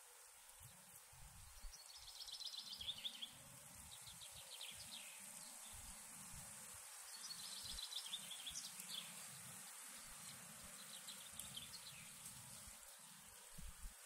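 Faint songbird song: two fast trilled phrases about five seconds apart, with a few shorter notes between, over a steady high hiss.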